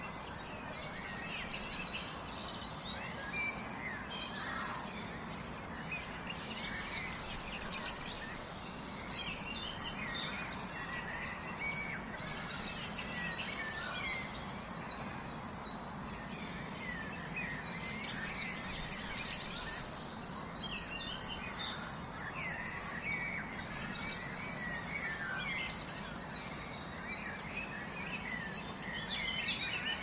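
Waterfall rushing steadily, with many small birds chirping and singing over it in quick, scattered calls.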